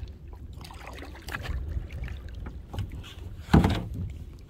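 Kayak paddle strokes through the water, under a low wind rumble on the microphone, with one loud sudden thump about three and a half seconds in.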